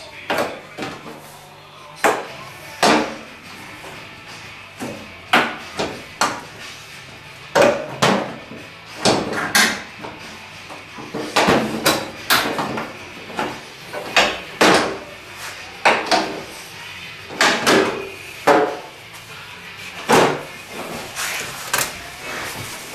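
Hammer strikes on the sheet-steel flange of a new door skin, folding the hem seam over the door frame with hammer and dolly: irregular sharp metallic taps, one or two a second, each with a short ring.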